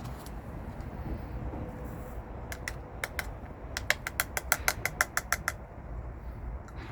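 A run of about fifteen sharp, lightly ringing clicks or taps, a few at first and then a fast even run of about six a second, over a steady low rumble.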